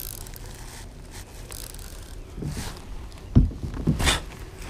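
Small handling noises as fishing tackle is reworked by hand in a kayak, with a dull thump about three and a half seconds in and a sharper knock just after.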